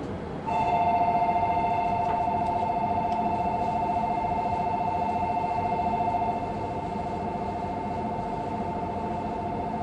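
Electronic platform departure bell ringing: a steady two-tone trill that starts about half a second in and rings on, a little quieter after about six seconds, over the hum of a busy station platform. It is the signal that a train is about to leave.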